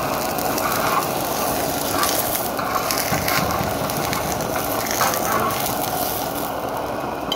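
Cooking fat sizzling steadily under a besan roti frying on a hot tawa.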